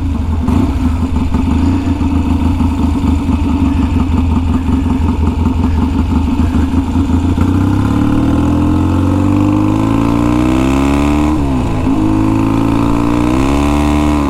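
1966 Triumph Bonneville T120TT's 650cc parallel twin running through its big pipes, pulsing at low revs, then accelerating with rising pitch from about halfway. Near the end the revs dip sharply, climb again and hold high.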